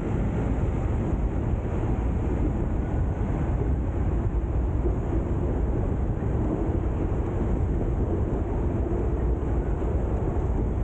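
Hong Kong double-decker electric tram running along its track, a steady rumble of wheels on rails heard from on board.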